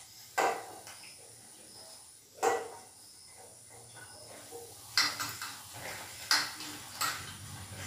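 Stainless steel bowls clinking and knocking as cut raw banana pieces are tipped from one bowl into another holding turmeric water, about five sharp clinks spread a second or two apart.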